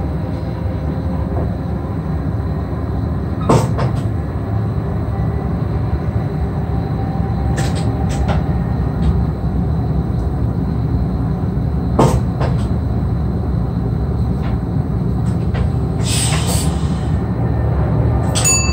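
Cab interior of an NS SGM Sprinter electric multiple unit running at speed: a steady rumble of wheels on rail, with sharp knocks about three and a half seconds in and again about twelve seconds in, and a brief hiss near the end.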